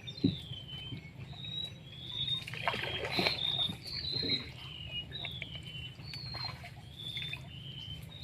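A bird singing a string of short, clear whistled notes, some sliding down in pitch, with a few brief noises about three seconds in.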